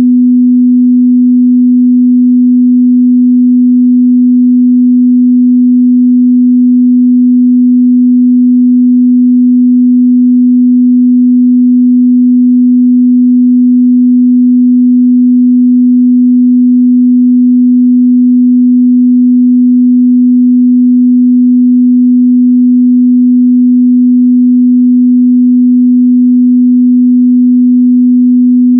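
A steady 248 Hz sine test tone, one pure mid-bass pitch held at a constant loud level.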